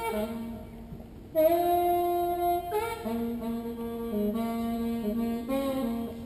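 Solo saxophone playing a slow melody: a softer note at first, then about a second and a half in a long held note, followed by a string of shorter notes stepping up and down in pitch.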